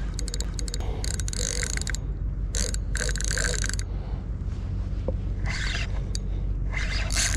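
Spinning reel under load from a hooked fish, ratcheting in short bursts of rapid clicking, five or so times.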